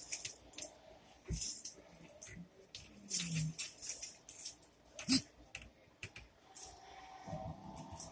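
Metal buckle of an arm-wrestling strap jangling and clinking in short bursts as the strap is pulled tight around the wrestlers' hands, with a couple of dull low thumps.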